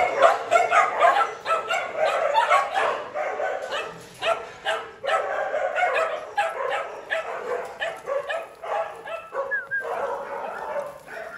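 Many Bắc Hà shaggy dogs barking and yipping at once, their overlapping voices making a continuous din that eases somewhat in the second half.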